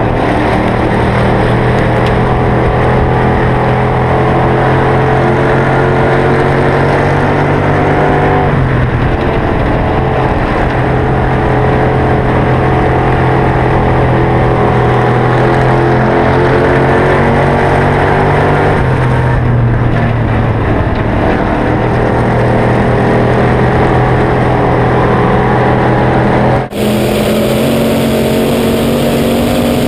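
Hobby stock dirt-track race car engine running hard, its pitch dipping and climbing back twice as the throttle eases for the turns. Near the end the sound cuts abruptly to a different onboard recording of the engine with heavy wind noise.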